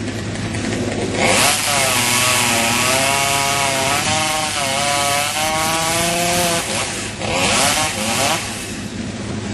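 Two-stroke chainsaw idling, then revved and cutting into ash wood from about a second in for several seconds, its pitch wavering as the chain bogs under load. The saw drops back briefly, then a second, shorter burst at full revs follows near the end before it falls back to idle.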